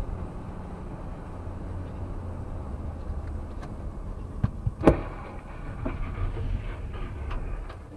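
Dash-cam recording of a car driving with a steady low road rumble, then a vehicle collision just ahead: two sharp bangs a little past halfway, the second the loudest, followed by a couple of seconds of clattering and scattering debris.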